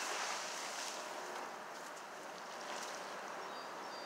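Steady rushing noise of wind on the microphone and flowing creek water, a little stronger in the first second.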